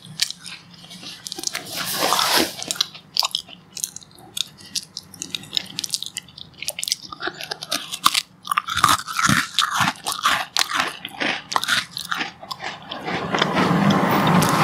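Crisp glucose biscuits being bitten and chewed: a run of sharp crunches that grows louder and denser near the end.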